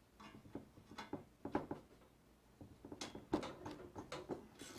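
Socket wrench on a metal bolt: clicking and clinking, irregular, in two spells, about a second in and again from about three seconds to near the end. The bolt is one holding a steel C-channel rail of the lathe bed to its casting, being worked loose.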